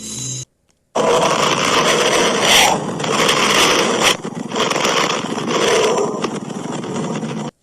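A 'space sound' of a planet, as in sonified spacecraft recordings: a loud, rough rushing noise with crackle, starting about a second in after a brief gap and cutting off abruptly just before the end.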